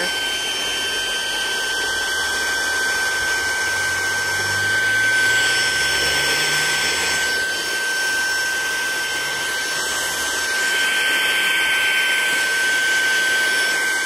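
Saker mini handheld cordless vacuum cleaner running steadily: a high whine over a rush of air as its nozzle is held to leaves to suck up a beetle. It is running on a low setting, not strong enough to pull the beetle in.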